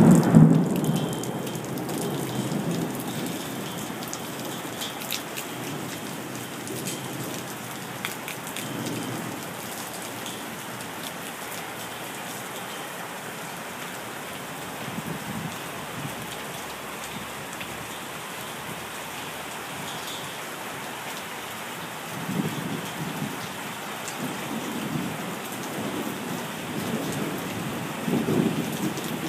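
Steady rain falling, with scattered sharp drop ticks. A low thunder rumble fades away over the first few seconds, and more thunder rumbles build again near the end.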